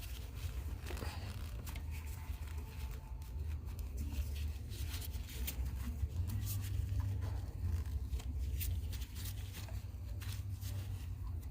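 Cloth rag rubbing and scattered small handling clicks as excess thread sealant paste is wiped off a freshly tightened air-compressor fitting, over a steady low rumble.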